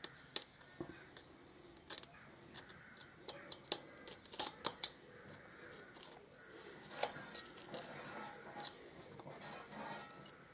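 Irregular small metallic clicks and scrapes of a pointed pick tool digging an old exhaust gasket out of a Harley-Davidson Deuce's exhaust port.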